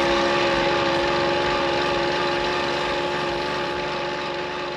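Tomos Automatik A3 moped's 49 cc single-cylinder two-stroke engine running at a steady speed under way, with a constant buzzing drone, slowly fading.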